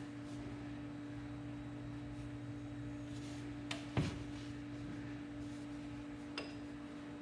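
Steady low hum with a few sharp metallic clicks of hand tools working on a portal gear housing's plug, the loudest a single knock about four seconds in.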